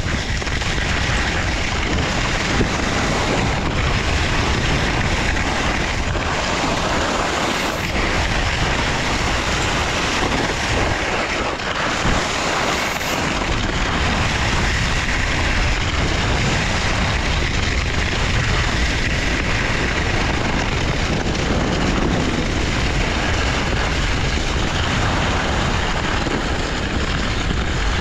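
Steady rushing noise of a downhill ski run: wind buffeting the microphone and skis sliding over the snow.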